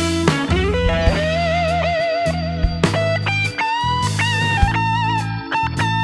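Background music: an electric guitar melody with bent, wavering notes over bass and drums, in a blues-rock style.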